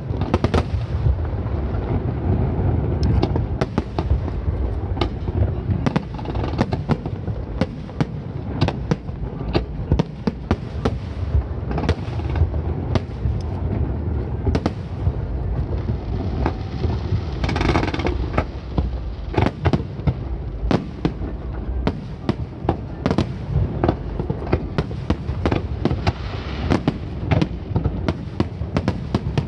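Aerial fireworks shells bursting in rapid succession: a steady low rumble of booms laced with many sharp cracks, and a dense fizzing crackle about eighteen seconds in.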